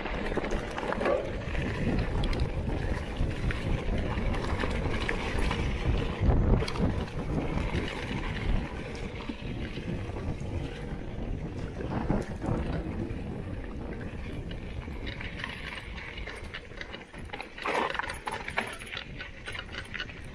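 Mountain bike ridden down a rough singletrack, clattering and rattling over stones and roots, with wind rumbling on the microphone.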